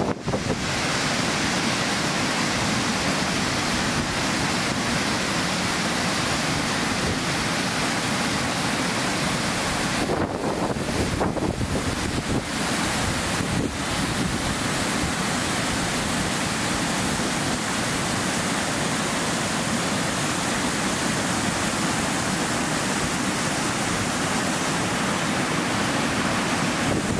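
Steady rushing of a waterfall, water pouring down over rock in an even, unbroken wash of noise.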